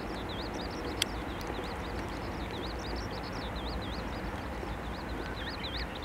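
A small songbird singing a long, continuous run of quick, rising-and-falling high notes over a steady low background rumble, with one sharp click about a second in.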